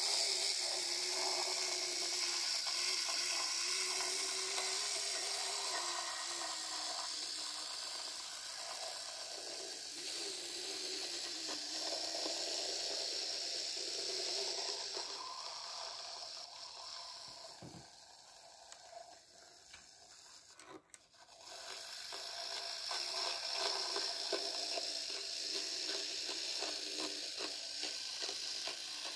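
Small electric motor and gearing of an H0f-scale Schöma field-railway diesel locomotive model whirring as it runs along the track with its wagons. The whine wavers in pitch and fades for a few seconds in the middle before picking up again.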